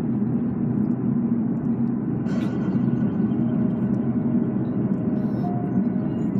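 Steady road and engine noise from inside a moving car, with a short click about two and a half seconds in.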